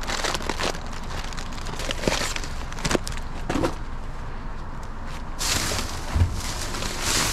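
Plastic bags and food packaging crinkling and rustling as gloved hands dig through a dumpster's contents, with many short sharp crackles. From about five seconds in the rustling becomes denser and steadier, and there is a dull thump about six seconds in.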